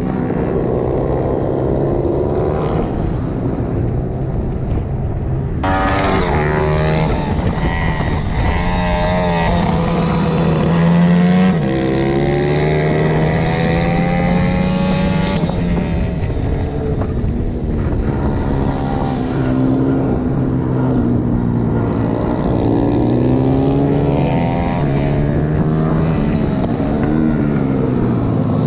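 Thundervolt NK-E electric pit bike ridden at speed, heard onboard: its electric motor and drivetrain whine, rising and falling in pitch as the bike accelerates and slows through corners, over a steady rush of wind and tyre noise.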